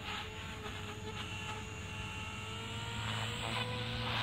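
JR Forza 450 radio-controlled helicopter flying, its motor and rotor making a steady whining hum that rises slightly in pitch and grows a little louder toward the end.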